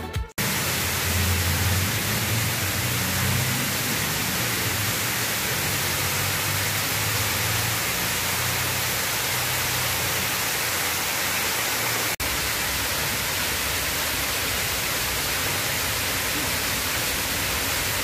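Steady rushing and splashing of water from a long row of fountain jets falling in front of a stone wall. The sound drops out for an instant about twelve seconds in.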